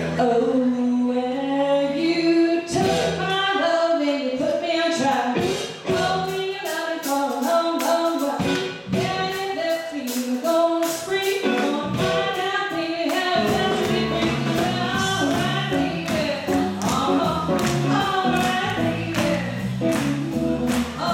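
Live swing band playing with a woman singing the lead over drums; the bass and fuller band come in about two-thirds of the way through.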